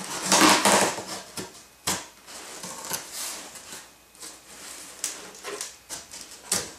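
Cardboard box flaps scraping as they are folded open, followed by a hand rummaging in styrofoam packing peanuts: irregular rustles, squeaks and light clicks.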